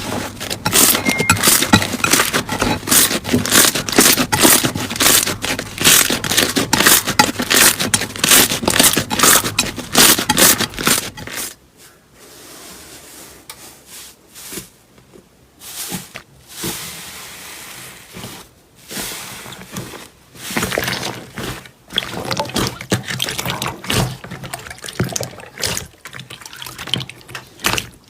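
Slime being worked by hand, with fast, dense wet crackling and popping for about the first eleven seconds, then quieter, scattered squelches with short pauses between them.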